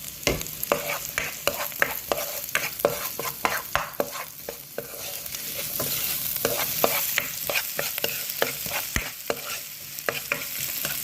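Chopped onions frying in hot oil in a pan, sizzling, while a utensil stirs them with frequent knocks and scrapes against the pan. The sizzle gets louder about halfway through.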